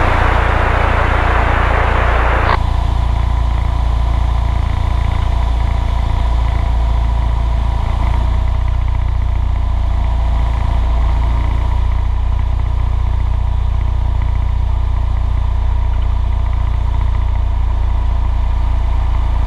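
Cessna 172's piston engine droning steadily in the cockpit. For the first two and a half seconds a burst of radio hiss sits over it, cutting off with a click.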